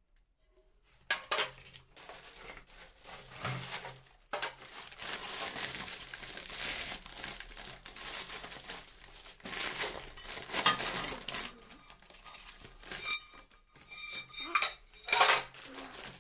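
Clear plastic packaging wrap crinkling and rustling as nonstick pans are unwrapped and handled, with occasional sharp knocks of the pans. It starts about a second in.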